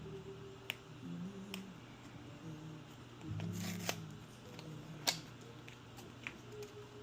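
Packaging being handled: a brief rustle of paper or plastic a little past the middle, and several sharp clicks and taps of the box and adapter, the loudest about five seconds in.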